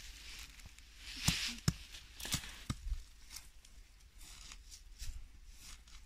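Short-handled metal digging trowel scraping and cutting into forest soil and leaf litter, with a few sharp clicks of the blade between about one and three seconds in.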